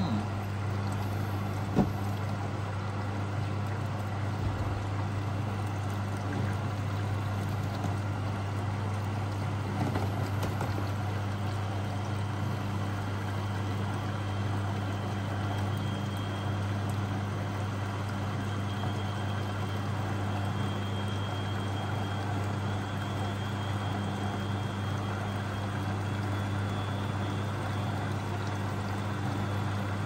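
Beko WMB81341LS washing machine's pump running with a steady low hum as water pours and swirls through it, with a single sharp knock about two seconds in.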